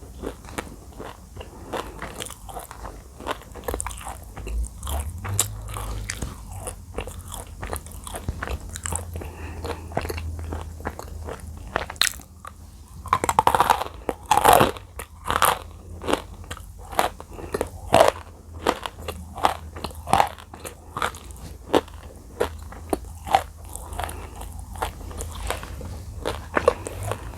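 Close-miked biting and chewing of dry edible clay (Nakumatt clay), a steady run of sharp crunches, with a louder, denser spell of crunching about halfway through.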